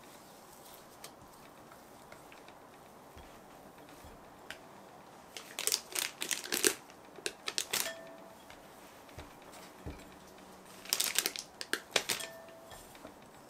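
Plastic piping bag crinkling and a spatula clicking against it and its cup as thick chocolate batter is scraped off into the bag. There are two spells of quick crackles and clicks, about six seconds in and again about eleven seconds in, with quiet between.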